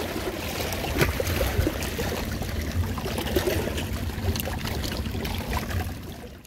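Shallow sea water lapping and trickling among breakwater rocks at the shoreline, over a low rumble, with a light knock about a second in. The sound fades out near the end.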